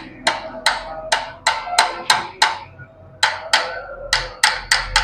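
Hammer tapping the small key for the magneto rotor into place on a Hero Splendor engine: a run of sharp, ringing metal taps, about three a second, a short pause near the middle, then quicker taps.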